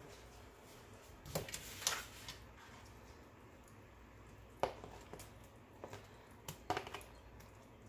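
Metal tongs clicking and tapping against a stainless skillet while chicken tenders are transferred into a creamy sauce: a few short, sharp clicks spread out over several seconds.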